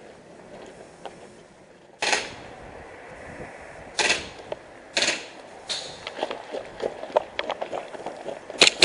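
Airsoft guns firing: single shots about two, four and five seconds in and another shortly after, each a sharp crack with a short trailing hiss, then scattered lighter clicks and a quick string of several shots near the end.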